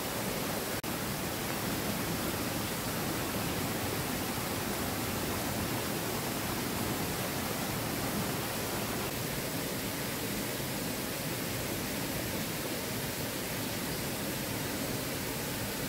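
Steady rush of falling water from a small waterfall cascading over rocks, with a momentary dropout about a second in.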